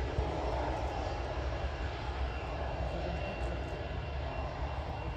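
Boeing 727's three Pratt & Whitney JT8D turbofans running as the jet rolls along the runway: a steady rush of jet noise over a low rumble. A faint high whine comes in about halfway through.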